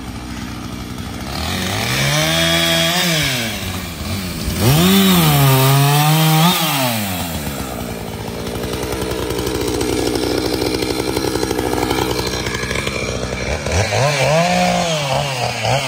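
Gas chainsaw cutting up a downed tree limb. It is revved up hard three times: early on, for a couple of seconds just before the middle, and again near the end. Between the cuts it drops back to a lower steady run.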